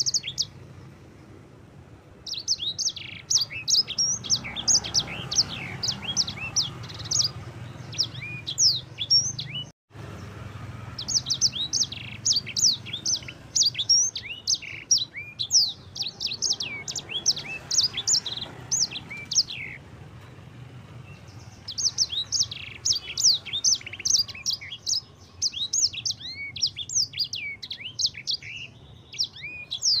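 Caged sanger (grey singing finch) in full song: a fast twittering run of quick, high sweeping notes, given in three long bouts with short pauses between.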